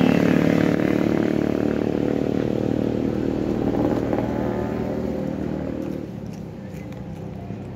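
Motorcycle engine passing on the road, its running note fading gradually as it moves away.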